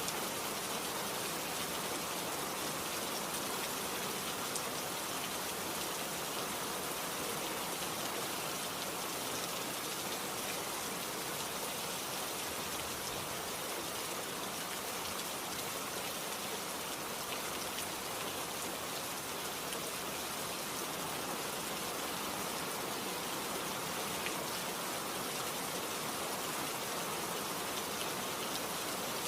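Steady rain falling, a dense even hiss with countless fine drop patters on surfaces and no let-up.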